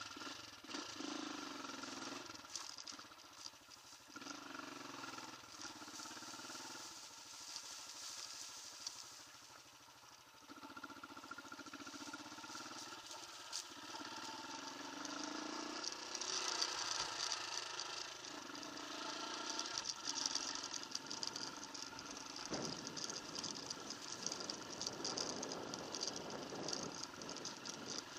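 Off-road motorcycle engine running under way, its revs rising and falling with throttle changes.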